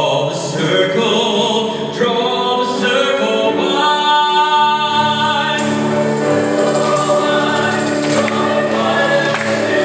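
A male soloist singing a hymn holds a long, high note, and then a choir comes in with sustained chords under him.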